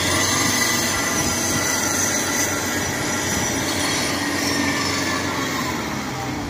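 Kubota DC-93 tracked rice combine harvester crawling up a steep dyke, its diesel engine running under load with the clatter of its track running gear and high steady whining tones. It fades a little near the end as it pulls away.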